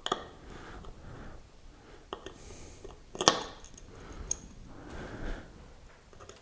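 Scattered small metal clicks and scrapes of a T7 Torx screwdriver working the screws on the neodymium magnet bracket inside an opened hard drive. The sharpest click comes a little past three seconds in.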